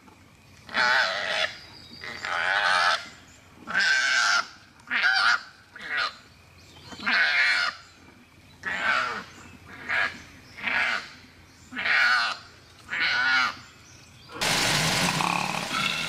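Koalas screeching while fighting: a string of about a dozen short, harsh, wavering squalls, roughly one a second. A steady hiss comes in near the end.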